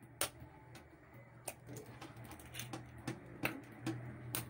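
Eggs being tapped and cracked against the rim of a bowl of flour: a handful of faint, sharp clicks spread apart, over a low steady hum.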